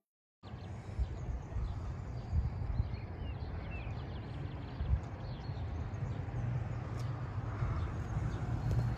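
Outdoor ambience with a steady low rumble and a few short bird chirps about three seconds in, starting after a brief silence.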